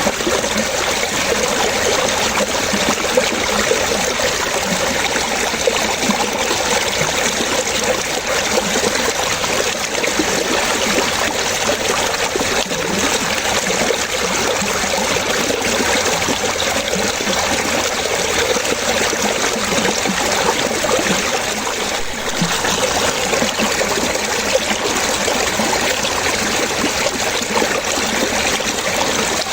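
Running water splashing and trickling steadily, with no breaks.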